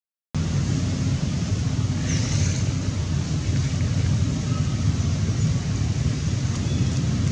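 Steady low outdoor rumble with no clear animal calls, dropping out for a split second at the start; a faint brief hiss comes about two seconds in.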